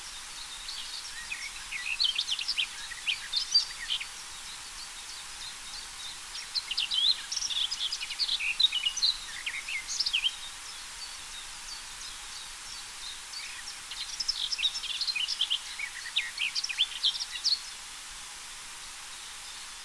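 Garden warbler singing: three long phrases of rapid, jumping notes, each a few seconds long with pauses between, over a steady background hiss.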